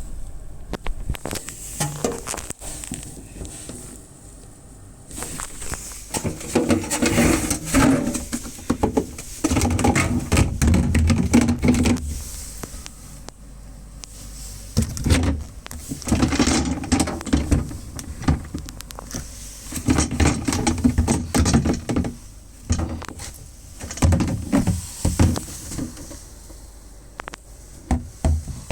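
Irregular handling sounds: bursts of rustling and clattering a second or two long, with scattered knocks and clicks and quieter gaps between.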